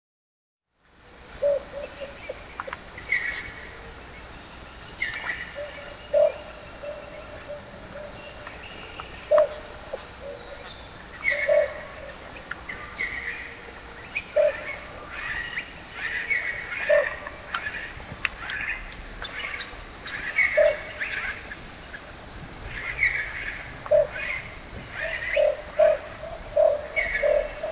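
Russet-crowned motmot calling: short, low, hollow hoots every second or two, coming faster in a quick run near the end. Higher chirping calls fall between them over a steady high-pitched whine.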